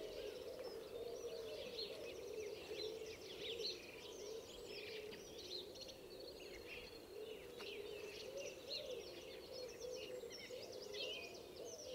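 Small songbirds chirping and twittering, many short high calls overlapping throughout, faint, over a quiet low hum.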